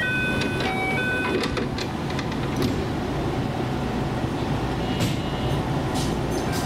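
Electric commuter train starting to pull out, heard from inside the car: a steady low rumble of motors and wheels as it gathers way. A few short electronic chime notes step up and down in pitch near the start.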